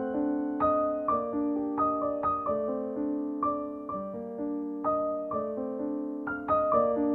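Background music: a gentle solo piano piece, single notes and chords struck about every half second and left to ring and fade.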